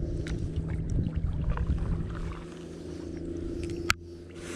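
Kayak drifting on a river: small knocks and handling clicks against the hull over a steady low hum and rumble. Near the end comes one sharp click, then a brief hiss.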